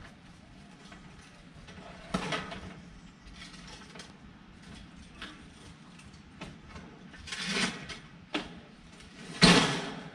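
Scraping and clanking of a metal air-conditioner condenser unit and hand truck being handled and shifted, in a few short bursts, the loudest near the end.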